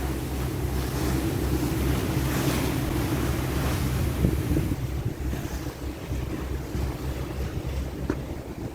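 Wind buffeting the microphone over the steady low drone of a boat's engine, with water rushing past.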